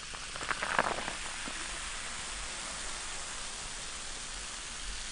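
Carbonated lemon-lime soda (Korean cider) fizzing steadily in a cup just after being poured, a fine crackling hiss of bubbles. There are a few short splashes or clinks about half a second to a second in.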